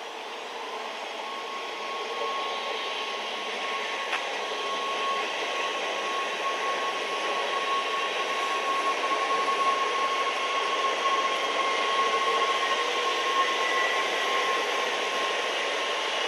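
Train approaching, its running noise growing steadily louder, with a steady high whine over it.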